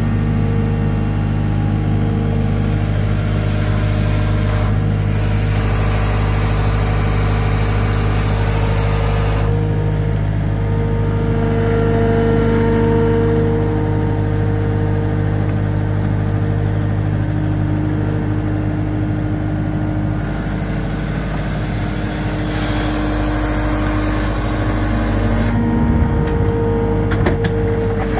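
Engine of a working machine running steadily at a low, even speed, with a hiss that comes and goes over it in long stretches. A few knocks sound near the end.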